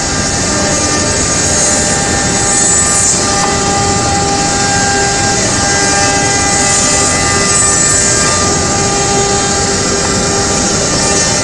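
ATC CNC router spindle running and cutting: a steady, loud machine noise with several held whining tones over a high hiss.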